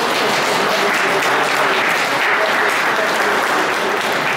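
Audience applauding, a dense, even clapping that holds at a steady level throughout.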